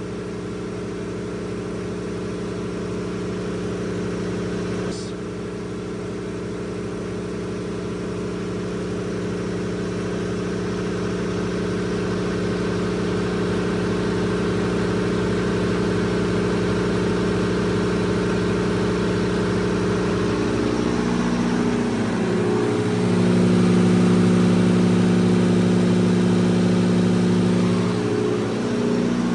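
Diesel standby generator running steadily, with a single click about five seconds in. About two-thirds of the way through, the engine note dips and comes back louder as extra load is transferred onto it, and it dips briefly once more near the end.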